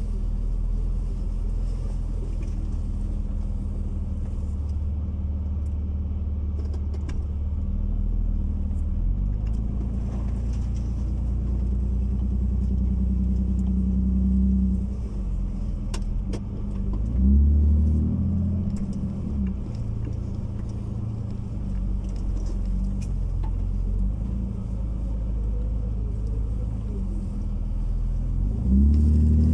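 Jeep TJ engine running at low revs as it drives over snow, a steady low drone heard close from the hood. It briefly revs up about two-thirds of the way through.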